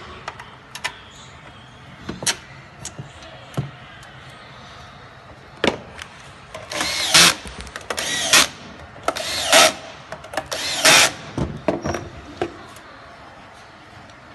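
Scattered sharp metal clicks of screws and small parts on the bench, then four short runs of a power screwdriver, each under a second, backing out the case screws of a GX Pump CS3 compressor.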